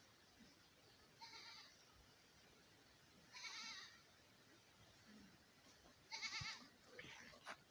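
Faint animal calls: four or five short, wavering, high-pitched calls about every two seconds.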